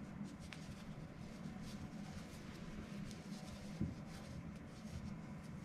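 Crochet hook working yarn in single crochet: soft, steady scratching and rustling as the hook pulls loops through the stitches, with one soft low bump partway through.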